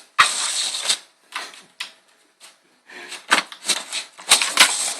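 Dustpan scraping and rattling across the floor in short, jerky pushes, with a kitten riding on it. There are several separate bursts with brief pauses between them.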